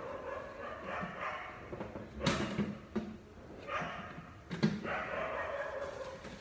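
Two sharp hard-plastic knocks, about two seconds apart, as a SW-Motech top case is handled and seated onto its rack mounting plate, with a wavering pitched sound running underneath.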